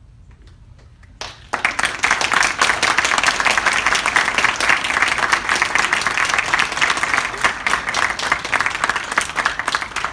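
Audience applauding, a dense patter of many hands clapping that starts about a second and a half in.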